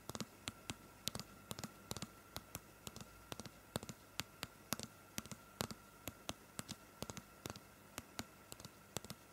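Fingers tapping and handling the camera right at the microphone: quick, irregular sharp clicks, about three to five a second.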